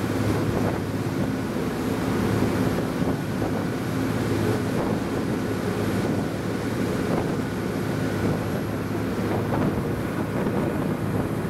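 Motor boat's engine running steadily at cruising speed, a low even drone, with the rush of its churning wake and wind buffeting the microphone.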